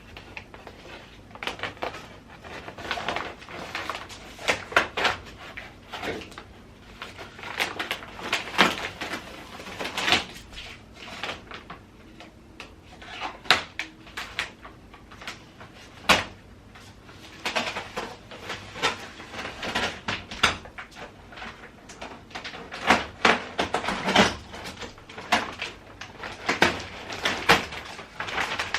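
Packaging being opened and pulled off a new washing machine: an irregular run of knocks, scrapes and rustles at uneven intervals, some sharp and loud.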